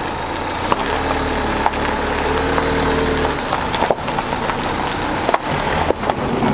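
Renault Trafic minibus rolling slowly across a gravel car park, its tyres crunching over the stones with scattered irregular cracks, and its engine running low for the first few seconds.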